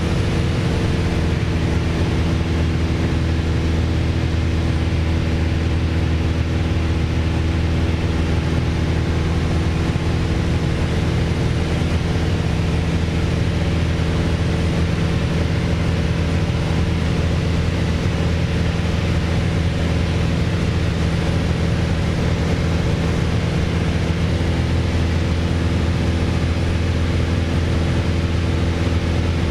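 Piper PA28-161 Warrior's four-cylinder Lycoming O-320 engine and propeller running steadily in cruise flight, heard inside the cabin, with an even drone that does not change.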